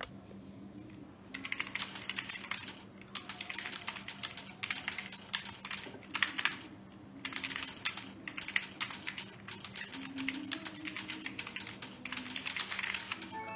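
Fast typing on a DIRDAO RGB gaming keyboard with soft keycaps. Quick runs of key clicks come in bursts of one to two seconds, starting about a second in, with short pauses between bursts. A faint steady hum lies underneath.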